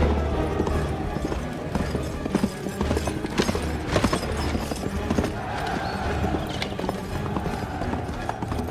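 Film battle-scene soundtrack: horses' hooves clattering, with music underneath.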